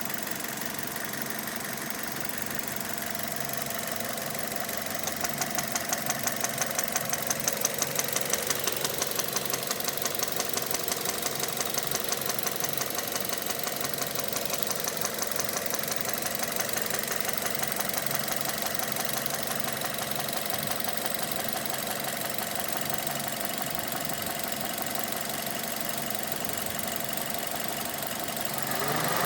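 2006 Mazda 6 2.0-litre four-cylinder engine running with a steady rhythmic knock, louder from about five seconds in. It is rod knock: the connecting rod hitting the crankshaft through worn, spun big-end bearings on cylinder one, after oil starvation.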